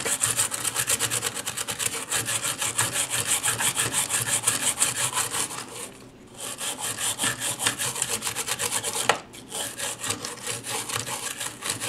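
Toothbrush bristles scrubbing the solder side of a circuit board in rapid back-and-forth strokes, about five a second, pausing briefly twice, to clean burn residue off the board around a burnt-out fuse.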